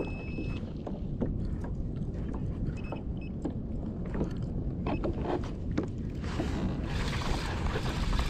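Water sloshing against a kayak hull at sea, with a low rumble and scattered small clicks and knocks; from about six seconds in, a louder hiss of splashing water.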